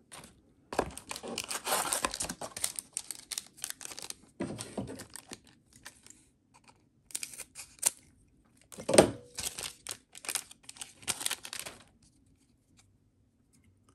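Foil trading-card booster pack being torn open and its wrapper crinkled: a run of rustling, tearing bursts with short pauses, one sharper about nine seconds in.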